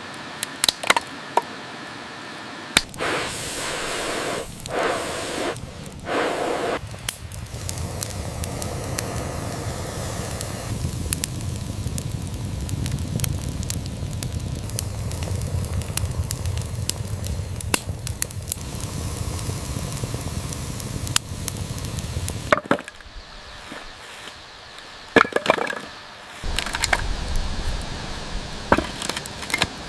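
Open wood fire burning, crackling with frequent sharp pops and snaps. Through the middle stretch a steady low rumble runs under the crackle, then drops away and the pops continue alone.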